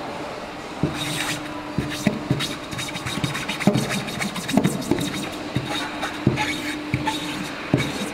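A flat rectangular hand tool is rubbed and pressed in quick irregular strokes over a repair patch on blue inflatable fabric, making scraping rubs and small knocks against the tabletop, to bond the patch. A faint steady low hum sits underneath.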